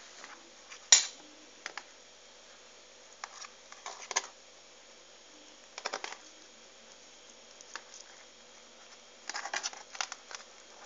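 Hands handling cabbage leaves and stuffed cabbage rolls in a pot: scattered soft crackles and clicks, the loudest a sharp click about a second in, with further clusters around four, six and nine seconds.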